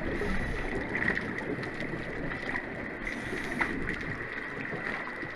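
Steady noisy water ambience in a large indoor test basin, with a faint steady high tone underneath and a few faint ticks.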